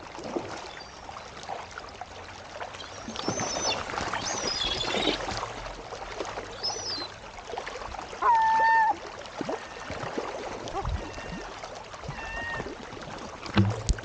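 Shallow river water rushing and splashing over rocks, with gulls flapping and splashing down into the water. High squealing gull calls come a few seconds in, one loud long gull call about eight seconds in, and shorter calls near the end.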